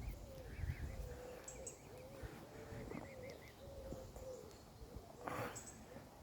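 Faint bird calls: a low cooing call repeated over and over in short phrases, with small high wavering calls in the first half. A brief rustling burst comes about five seconds in.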